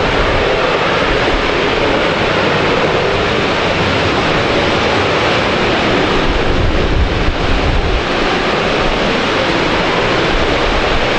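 Loud, steady rushing noise from the Cartavio sugar factory, carrying across the town streets; the din is even and without rhythm, and its constant loudness is the nuisance residents complain of. A stronger low rumble comes in between about six and eight seconds in.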